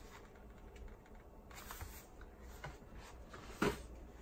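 Handling noise from a plastic item being picked up and moved around: scattered light clicks and rustles, with one sharper knock near the end.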